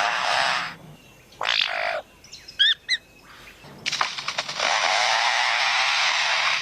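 Superb lyrebird mimicking a chainsaw cutting: harsh, rasping saw-like noise. It breaks off briefly near the middle, where a few short rising whistled notes sound, then comes back as a long steady rasp through the second half.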